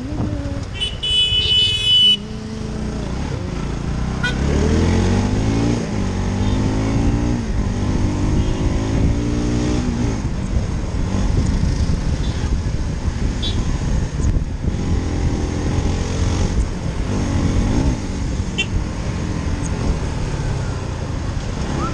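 Motorcycle engine heard from the rider's seat, running and climbing in pitch several times as it accelerates through traffic. A vehicle horn honks once, for over a second, near the start.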